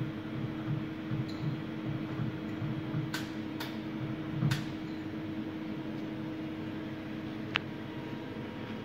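Cincinnati Milacron Dart 500 CNC machining center running with a steady hum over a low pulsing, about two pulses a second. Sharp clicks come three times around the middle and once more later. The hum cuts off near the end.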